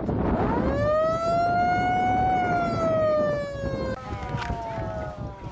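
Football ground's motor siren sounding, the signal for the end of a quarter: it winds up quickly, holds for about three seconds, then slowly winds down and fades.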